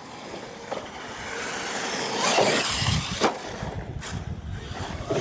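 Radio-controlled monster trucks running on a dirt track: motors and tyres on loose dirt, growing louder from about a second in, with a low rumble from about three seconds in and a couple of sharp knocks.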